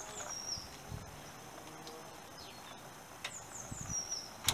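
Hands working a coolant thermo switch loose from its housing in an engine bay: soft knocks of handling, then a sharp click near the end. A bird sings in the background, two short phrases of quick descending notes.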